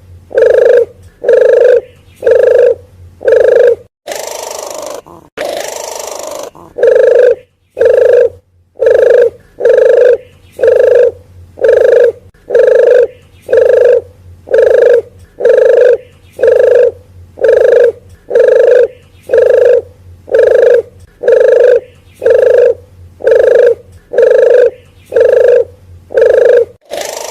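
Lure recording of a wild dove (puter geni / puter hutan) cooing: short, low, hollow notes repeated about one and a half times a second. The series breaks for about three seconds near the start, with two bursts of hiss, then resumes evenly.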